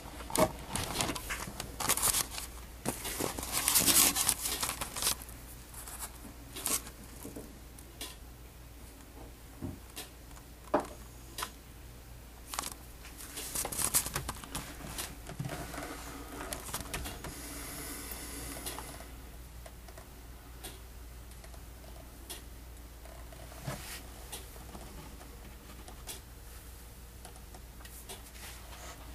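Irregular clicks, scrapes and rustling close to the microphone, busiest for a few seconds near the start and again around the middle, with a brief soft hiss a little after the middle.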